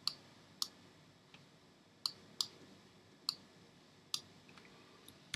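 Computer mouse button clicking: about seven short, sharp clicks, irregularly spaced, as a dodge brush is dabbed over the highlights of an eye in Photoshop.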